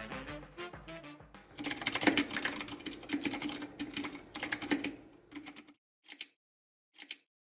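Fast typing on an all-aluminum mechanical keyboard with metal keycaps: a dense clatter of keystrokes for about four seconds, then two single key presses about a second apart. Background music plays at the start.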